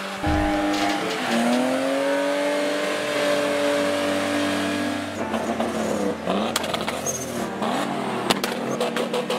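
BMW E30 engine revving hard during a burnout, its note dipping about a second in, then rising and held high with the rear tyres spinning. In the second half the sound turns rougher and breaks into a rapid stutter near the end.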